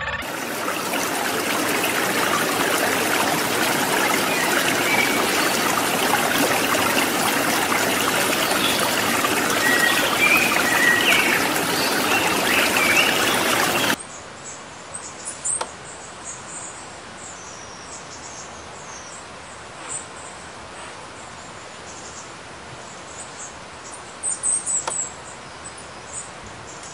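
Running stream water with faint bird chirps over it, cutting off abruptly about halfway through to quieter outdoor ambience with scattered high-pitched bird chirps.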